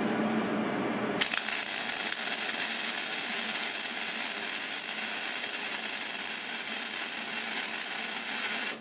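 MIG spool gun welding aluminium. The arc strikes about a second in and runs as a steady crackling hiss for about seven seconds, then cuts off suddenly when the trigger is released.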